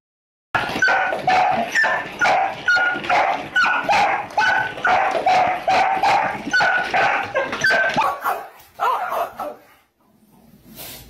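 A dog barking over and over in quick short barks, about two a second, which stop shortly before the end.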